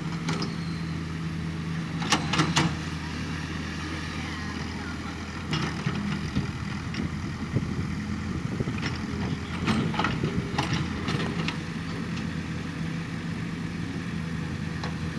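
Heavy construction machine's engine running steadily at a low hum, with a few sharp knocks scattered through it.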